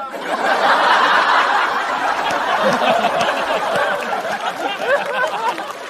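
Studio audience laughing, with some clapping, at a stand-up punchline. The laughter breaks out at once, is loudest about a second in, then slowly dies down.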